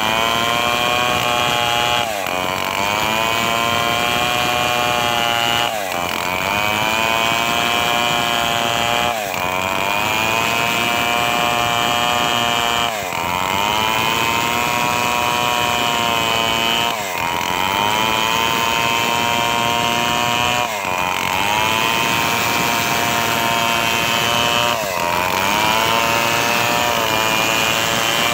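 Home-built chainsaw running at high revs while cutting a coconut-palm log, its engine pitch dropping sharply and climbing back about every four seconds, seven times.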